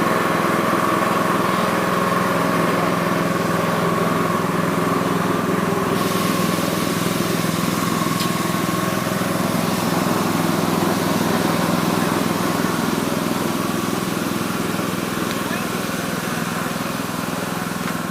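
Steady machine running noise, with voices in the background. The hiss in the upper range grows about six seconds in.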